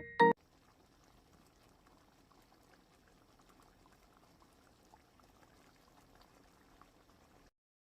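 Piano music stops a moment in, then pork-belly curry bubbling faintly in a pot, with small scattered pops.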